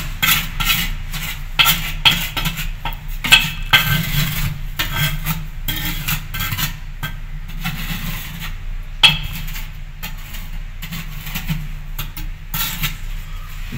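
Trowel and hand scraping and tapping wet cement mortar onto the ceramic joint between an Indian squat toilet pan and its outlet bend, sealing it against leaks: irregular clicks and scrapes over a steady low hum.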